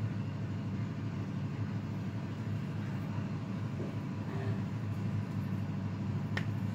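A steady low background hum, with a single light click near the end.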